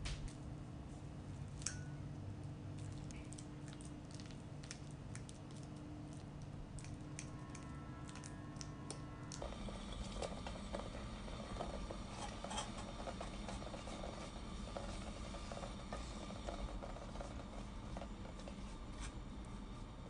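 Quiet kitchen handling: scattered clicks and taps of a utensil against a glass bowl of cut banana. From about halfway, a soft, steady crackle as mashed banana cooks in a pot with brown sugar, stirred with a silicone spatula.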